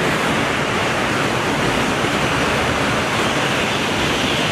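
Steady rush of running water washing mud off a toy train.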